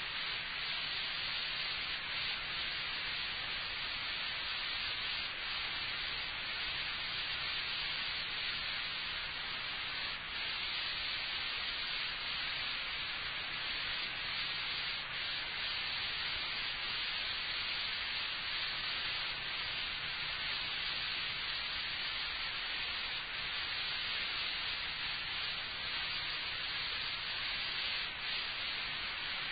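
Steady hiss of an old lecture recording's background noise with no one speaking, with a faint low hum underneath.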